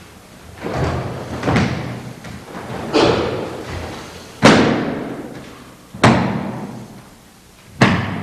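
A run of six heavy thuds, about one and a half seconds apart, each trailing off in an echo: bodies slamming onto the mat in martial arts throws and break falls.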